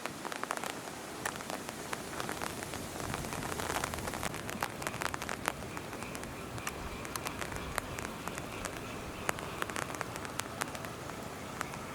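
Rain falling on a hard surface: a steady hiss with many irregular sharp drop ticks.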